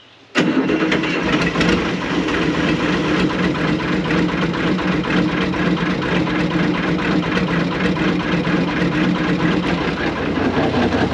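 Air-cooled Deutz diesel engine of a 1970s RM.80 excavator, just started after a long sit, comes in suddenly about half a second in and then runs steadily with an even, rapid diesel clatter.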